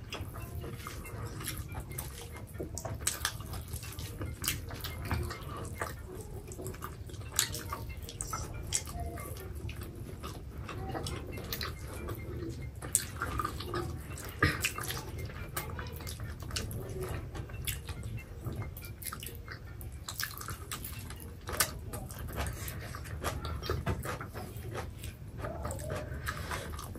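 Two people eating rice and pork curry with their hands: wet chewing and mouth clicks, heard as scattered sharp clicks over a steady low hum.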